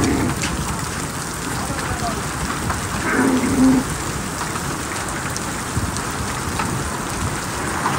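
Heavy rain mixed with hail pelting down onto wet gravel ground and puddles: a dense, steady hiss with scattered sharp ticks. A brief low voice-like sound comes about three seconds in.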